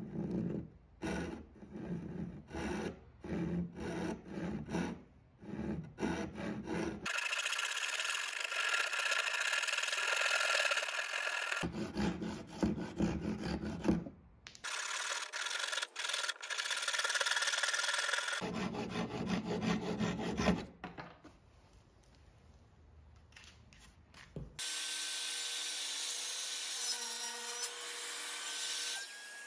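Handsaw cutting into a red oak board in back-and-forth strokes, about two a second, in several separate stretches. Near the end a table saw motor runs steadily with a held whine.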